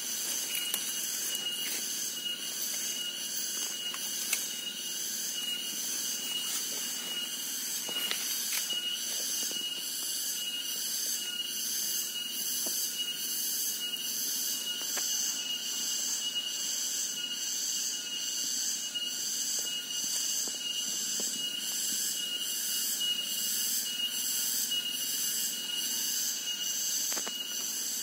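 Insect chorus, such as tropical cicadas: a shrill, continuous high-pitched drone that pulses in a slow, even rhythm over a steady high tone. A few faint rustles or clicks come through now and then.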